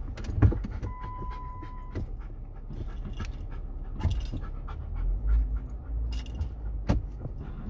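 Inside a vehicle's cabin on a rough dirt trail: low engine and road rumble, with knocks and rattles as it jolts over bumps and a hard thump about half a second in. A dog pants, and a short steady beep sounds about a second in.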